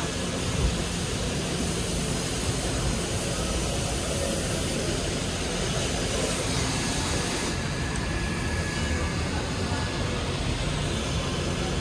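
Steady, even roar of running machinery with no separate events; the high hiss in it drops away about two-thirds of the way through.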